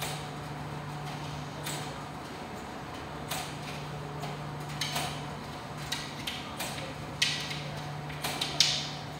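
ADC commercial tumble dryers running: a steady low hum with irregular clicks and knocks, two louder knocks near the end.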